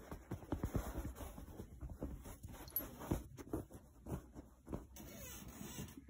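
Irregular soft taps, thumps and rustles as a cat and a hand move against a padded fabric chair, loudest about half a second to a second in and again about three seconds in.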